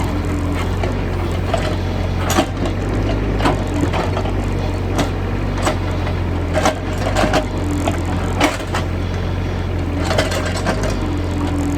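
Excavator's diesel engine running steadily while the bucket breaks into a hard-packed termite mound, with a dozen or so irregular cracks and knocks of earth and debris breaking.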